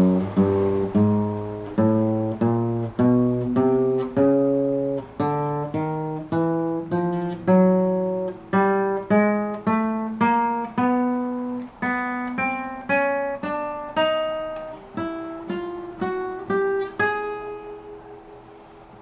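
Acoustic guitar (violão) playing single plucked notes one after another, about two a second, climbing in pitch as it works up the fretboard; the last note rings out and fades near the end.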